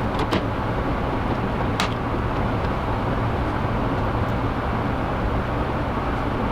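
A steady low hum under constant noise, with a few short sharp clicks just after the start and one about two seconds in.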